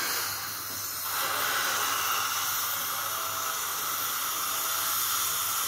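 Dental suction held in a patient's mouth, hissing steadily; the hiss grows brighter and a little louder about a second in.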